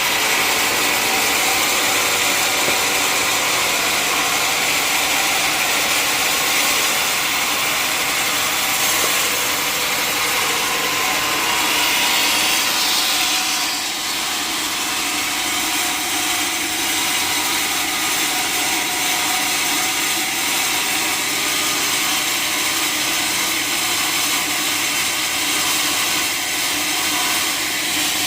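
Sawmill saw cutting steadily through a large mahogany log, a continuous high hiss of the blade in the wood over the machine's running tone, easing slightly about halfway through.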